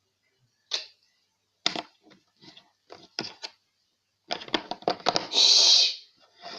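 Slime being squeezed and pressed by hand, giving a series of short wet clicks and pops, a quick flurry of them about four seconds in, then a brief loud squelching hiss near the end.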